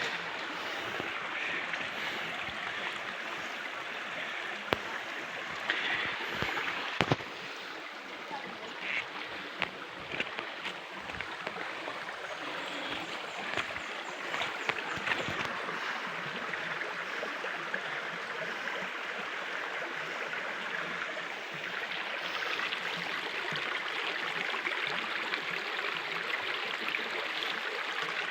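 Shallow river water running steadily over a ford, with a few sharp knocks about a quarter of the way in.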